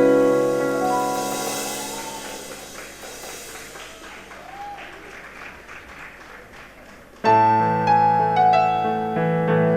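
Musical keyboard chord ringing and fading away over the first few seconds, then faint background noise, then a new full sustained chord entering suddenly about seven seconds in.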